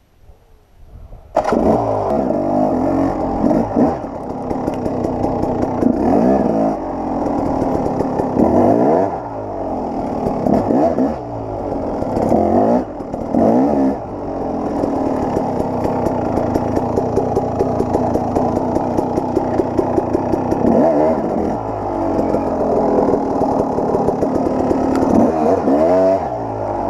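KTM 300 XC-W two-stroke dirt bike engine coming in suddenly about a second in, then revving up and down in repeated bursts while pulling the bike up a steep, rocky climb.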